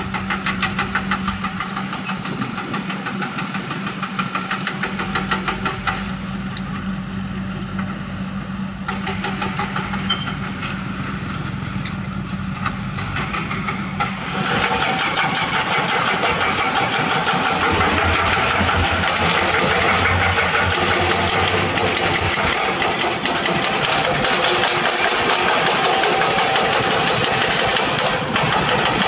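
Diesel engines of Komatsu earthmoving machines, a D31P bulldozer and PC200 excavators, running under work with a steady mechanical drone. About halfway through the sound steps up, becoming louder and harsher.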